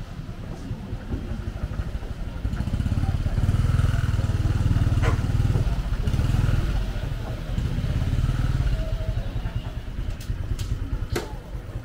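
Small motor scooter engine running at low speed close by, louder for a few seconds in the middle. A few sharp clicks near the end.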